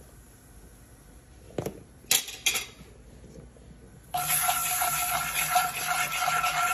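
A utensil knocking against a pot three times in quick succession, then about four seconds in a loud steady hiss starts abruptly and keeps going.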